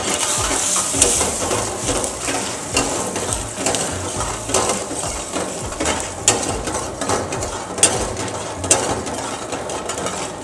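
Whole spices sizzling in hot oil in a steel wok while a steel ladle stirs them, scraping and clinking repeatedly against the pan.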